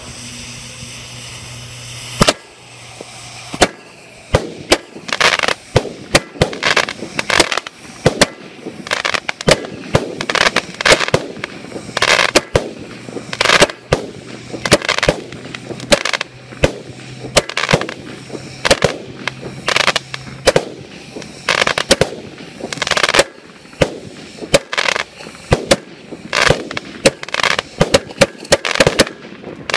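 Mirnovec Tornado 25-shot firework box firing: a long run of loud, sharp reports as the shots launch and burst overhead with cracking effects, the first about two seconds in and then coming irregularly, several close together at times.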